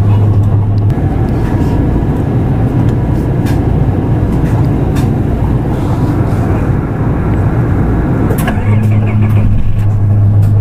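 Nissan Diesel PKG-RA274KAN city bus running: a steady low diesel hum gives way about a second in to rougher engine and road noise under way, with scattered clicks and rattles, then the steady hum returns near the end.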